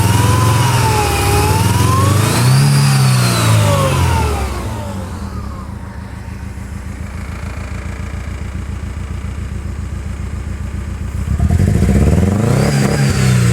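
1999 Mercedes-Benz C230 Kompressor's supercharged four-cylinder engine revved up and down a few times, dropping back to idle about five seconds in, then revved again near the end; the engine has a misfire on cylinder four.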